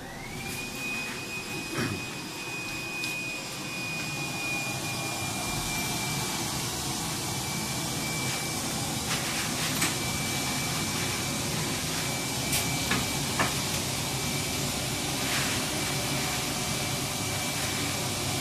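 Quilt coiling machine running: its motor finishes spinning up right at the start, then holds a steady high whine over a rushing noise, with a few short knocks along the way.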